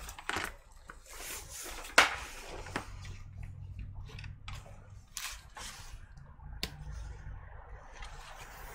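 Hands handling laptop parts while a spare screen is hooked up for testing: small clicks, taps and rustles, with a sharp click about two seconds in and another near the end. A faint low steady hum comes in about three seconds in.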